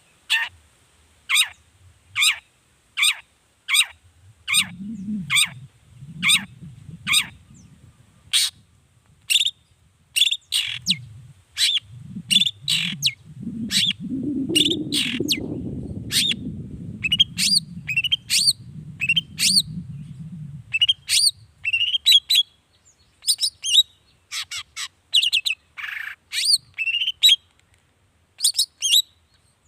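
Long-tailed shrike (cendet) singing: a string of sharp, downward-sweeping notes repeated steadily, that turns into faster, more varied phrases in quick clusters. A low rumble rises and fades in the background through the middle.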